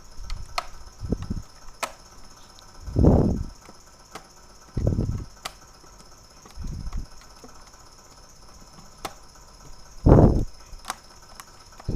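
Plastic case cover of an Acer Veriton N281G mini PC being pressed back on by hand: a series of dull thumps, loudest about three seconds in and near the end, with sharp clicks between them as the side clips snap into place.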